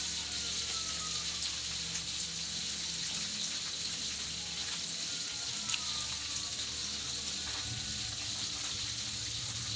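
Fish frying in hot oil in a pan, a steady crackling sizzle.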